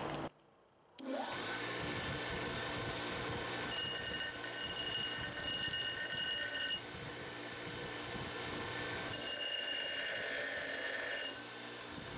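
JET 6-inch bench grinder running steadily while the steel back of an axe head is pressed against its wheel to knock down the mushroomed high spots. Two grinding passes of a few seconds each, starting about four and nine seconds in, add a high ringing whine over the motor. A brief silent gap comes right at the start.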